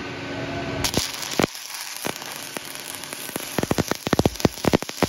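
Shielded metal arc (stick) welding with a cellulose 6010/8010-type electrode on pipe. The arc hisses in about a second in, then breaks into a fast, uneven crackle and pop from about three and a half seconds.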